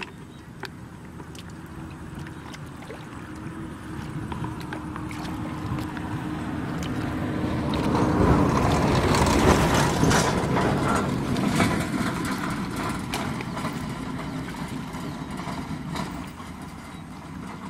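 An unseen engine passing by, growing louder over several seconds to a peak about halfway through and then fading away. Small splashes and clicks of hands working in shallow muddy water are heard throughout.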